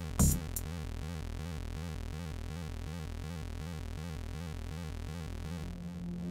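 Live electronic techno from hardware synthesizers and drum machines, in a breakdown: the drums stop after a last hit at the start, leaving a pulsing synth line over a low drone. A new held low synth note comes in near the end.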